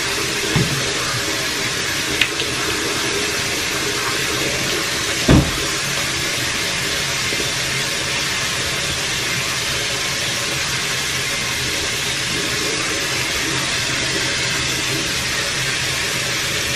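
Water running steadily from a bathroom tap, a constant even hiss, with a single low thump about five seconds in.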